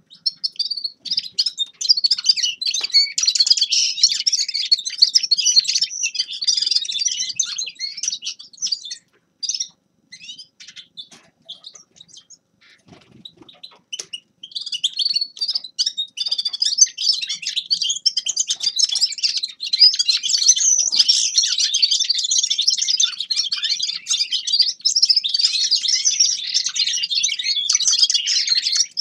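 A finch singing a fast, continuous twittering song. It breaks off about nine seconds in, leaving only scattered chirps, and resumes about five seconds later.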